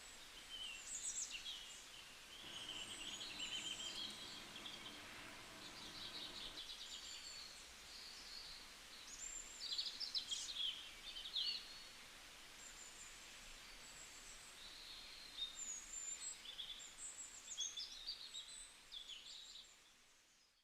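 Outdoor ambience of small birds chirping and calling, many short high chirps over a faint background hiss. A steadier sound with a low hum joins between about two and seven seconds in, and the ambience fades out at the end.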